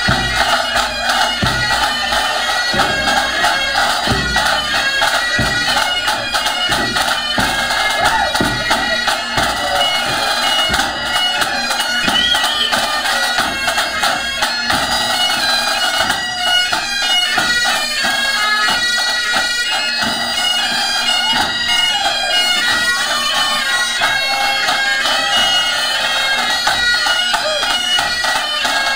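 Highland bagpipes played together by several pipers of a pipe band: steady drones under a continuous chanter melody.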